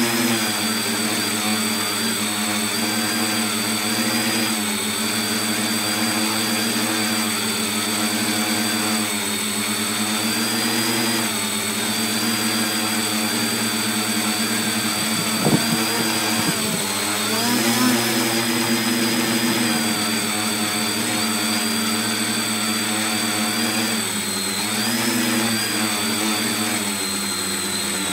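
Tricopter's electric motors and propellers whining, heard from a phone mounted on the craft, the pitch rising and falling several times as the throttle changes. A short knock about fifteen seconds in.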